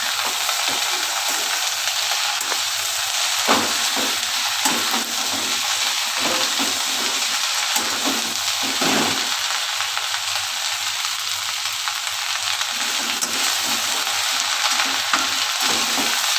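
Chopped okra sizzling in hot oil in a pan while it is stirred, with a steady frying hiss and irregular scraping strokes of the spoon through the vegetables, and a few sharp taps of the utensil on the pan.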